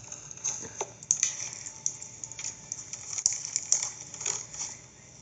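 Slime being squeezed and poked by hand, giving a run of irregular small clicks and crackles.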